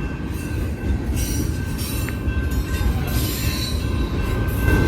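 Intermodal freight train rolling past as it slows, its cars rumbling with a steady high squeal from the wheels and brakes and hissy swells that come and go.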